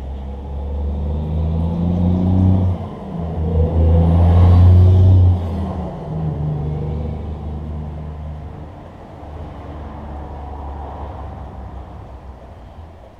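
Engine of a passing motor vehicle: a low rumble that grows louder to a peak about four to five seconds in, then fades away.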